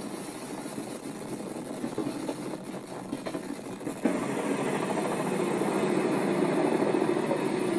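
Steady engine-like rumble and wind noise on the deck of a cargo ship under way, stepping up louder about four seconds in.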